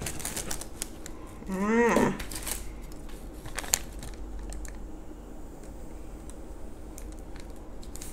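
Light plastic taps and clicks as a plastic tub is upended and lifted off a moulded block of homemade kinetic sand, then a plastic knife slicing quietly through the sand. A short wordless voice sound, the loudest thing, comes about a second and a half in, and there is a sharp click near four seconds.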